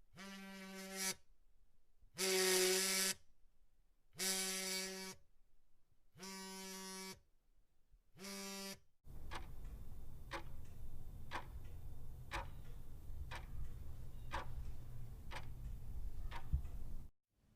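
A buzzer-like tone at one steady pitch sounding five times, about a second each with gaps between. About nine seconds in it gives way to a low rumbling noise with a sharp tick about once a second, which cuts off near the end.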